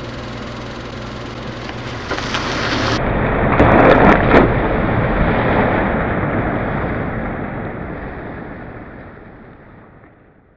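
Sound effect for a record-label logo ident: a steady low hum, then a rushing noise that swells to its loudest about four seconds in and slowly fades away.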